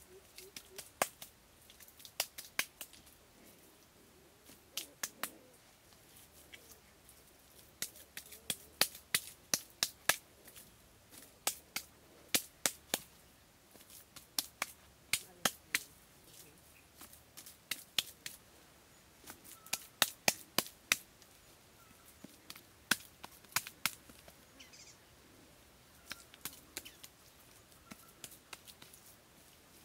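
Hands slapping and patting wet mud onto a stick frame: sharp slaps in quick runs of several at a time, with short pauses between.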